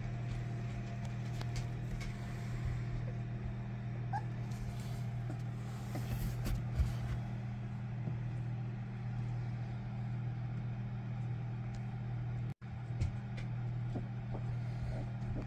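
Steady low machine hum, with a few faint soft clicks and rustles.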